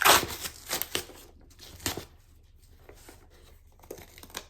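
A shipping package being torn open by hand, with a loud rip at the start, more rips about a second and two seconds in, then quieter rustling.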